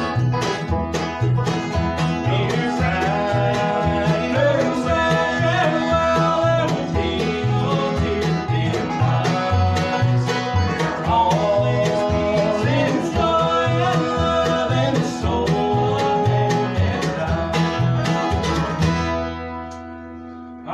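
Bluegrass string band playing live: mandolin and acoustic guitar over a steady upright bass beat. The tune ends on a final chord near the end, which rings out.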